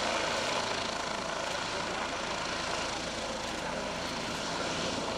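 Helicopter engine and rotor noise, steady and unbroken.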